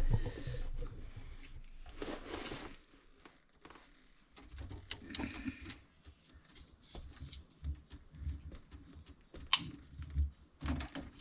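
Hands fitting kitchen faucet parts under a sink: rustling, then a series of sharp small clicks and light knocks of metal and plastic parts being handled, with low thuds.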